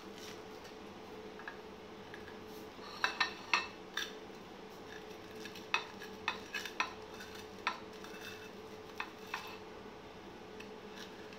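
A table knife cutting toasted bread pizza on a ceramic plate, the blade clicking and scraping against the plate in irregular clusters, the sharpest clicks about three to four seconds in. A faint steady hum runs underneath.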